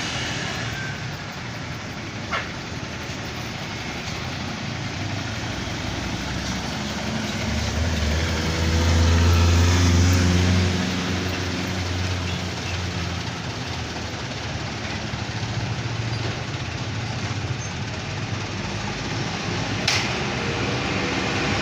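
Road traffic passing by. A heavy vehicle's deep engine drone swells about eight seconds in and fades about three seconds later. A sharp click comes near the end.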